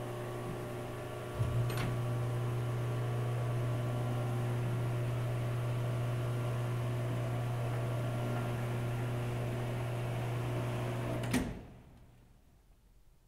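Electric curtain motor humming steadily as the stage curtains draw open. It switches on with a click about a second and a half in and stops with a sharp clunk about eleven seconds in.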